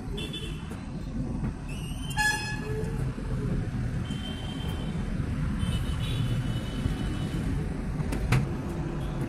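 Steady rumble of street traffic with several short vehicle horn toots, and a sharp click about eight seconds in.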